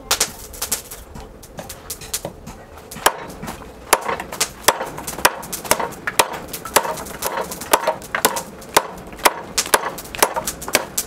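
Hand-forged knife chopping into a sugarcane stalk, each blow a sharp crack of the blade through the cane. There are a few scattered chops at first, then a quicker run of about two a second from about four seconds in.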